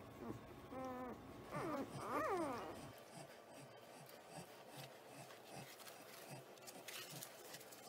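Newborn Caucasian Ovcharka puppies whimpering and squealing: a few short, wavering cries, the last one sliding down in pitch. After about three seconds there is only faint rustling of puppies shifting on a blanket.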